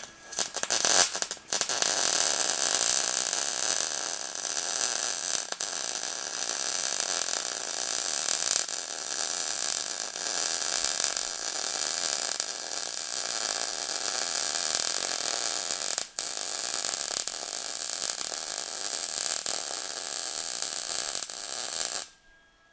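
MIG welding arc running a bead on quarter-inch steel plate: a steady hiss that breaks off briefly about a second in and again around sixteen seconds, then cuts off sharply near the end.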